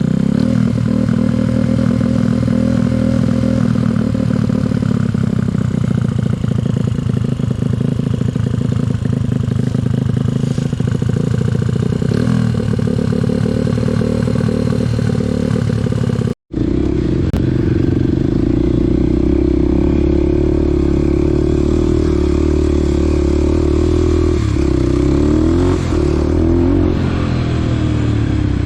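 Small dirt bike's engine running while riding, with rattling clatter. It breaks off abruptly about sixteen seconds in, then runs on at a steadier, slightly higher pitch, with a couple of brief revs near the end.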